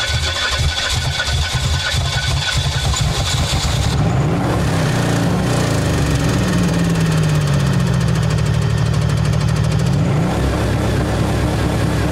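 A Pontiac's blown engine, already run without its oil, running roughly with uneven pulsing and a steady high whine, then revved up and down in several rising and falling sweeps.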